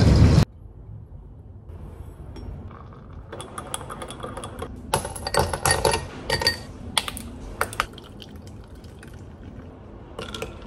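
Ice cubes clinking against a cut-glass tumbler as they are handled and a drink is stirred over them: a string of sharp clinks from about three to eight seconds in, and a few more near the end.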